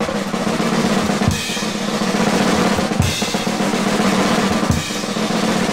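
Jazz drum kit opening a fast organ-trio number: a rolling snare and cymbal wash punctuated by three heavy bass drum accents about every second and a half, over a steady low held note.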